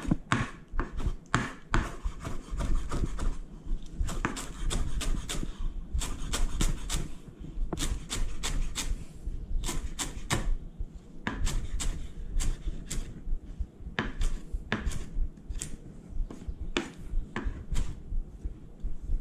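Kitchen knife chopping fresh chives on a wooden cutting board: a long, uneven run of quick blade strikes on the board, several a second.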